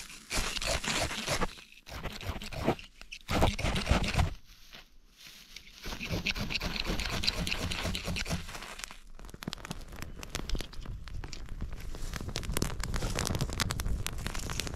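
Dry grass tinder being crunched and crumpled by hand in a fire pit. From about nine seconds in it burns with sharp, dense crackling over a low rumble as the grass flares into flames.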